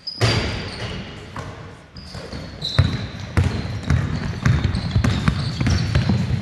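Basketball game on a sports-hall court: a loud knock at the start, then from about three seconds in a run of ball bounces and players' running footsteps, with sneakers squeaking on the floor.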